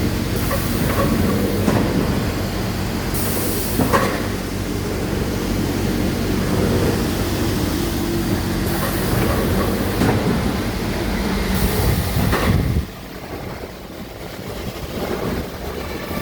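CNC panel saw running: steady machine noise with a low hum, several short hissing bursts and a sharp knock about four seconds in. The noise drops suddenly about thirteen seconds in.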